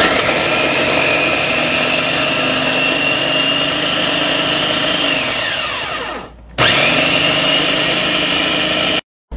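Homeelec electric food chopper running, its blade mincing onion, garlic, peppers and parsley. It runs for about five seconds, winds down in pitch and stops, then starts again for a shorter second run that cuts off near the end.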